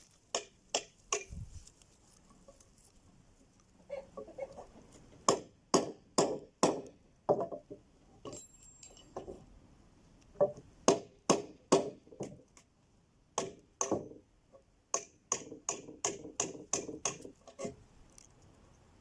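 Hammer blows on a square cutting tool, chopping out the sides of a square mortise in wood. A few sharp knocks at the start, then from about four seconds in a long, irregular run of two or three blows a second.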